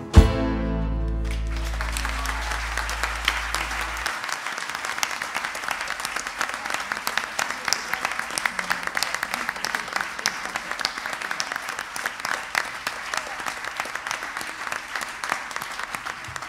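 A concert audience applauding steadily as the band's last chord rings out; the low end of the chord fades away about four seconds in, leaving the clapping alone.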